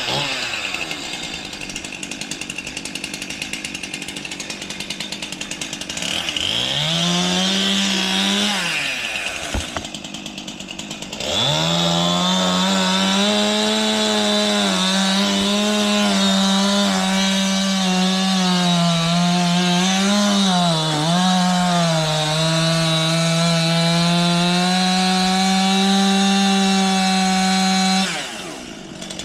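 Chainsaw idling, revved briefly, then held at full throttle from about eleven seconds in, cutting through a large maple limb; the pitch sags a few times as the chain loads in the wood, and the saw drops back to idle near the end.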